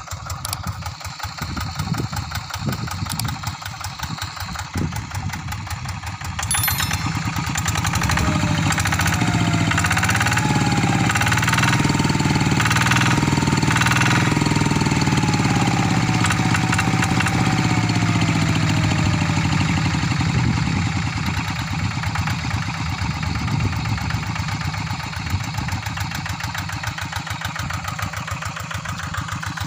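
Single-cylinder diesel engine of a two-wheel walking tractor running with a rapid, even firing beat. It gets louder about seven seconds in and settles back down after about twenty seconds.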